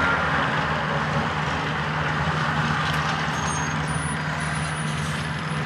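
Rail grinder's engine running steadily, a low even hum with no change in pitch, with a few faint high-pitched squeals about three and a half to five seconds in.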